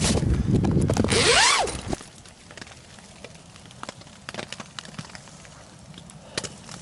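Someone moving into a tent and handling gear: a loud rustling, scraping rush for about the first two seconds with a short rising-and-falling sweep, then scattered light clicks and taps.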